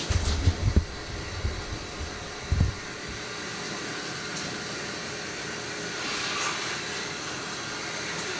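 Shower running: a steady hiss of water spray, a little louder from about six seconds in. A few low thumps from handling the camera come in the first few seconds.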